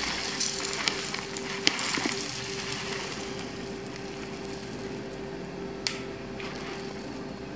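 Dry muesli flakes poured from a box into a bowl on a kitchen scale: a light, crackly pattering rustle with a few sharper ticks, over a steady faint hum.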